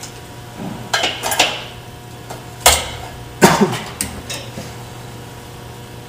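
Steel locking C-clamps clanking and clicking against laser-cut steel plates and the steel welding table as they are set and clamped down. There are several sharp metallic clanks, the loudest about three and a half seconds in, over a steady low hum.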